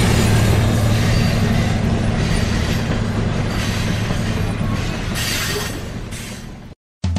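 Train sound effect: a train running on the rails with a steady rumble, fading out over the last couple of seconds and cutting to silence near the end.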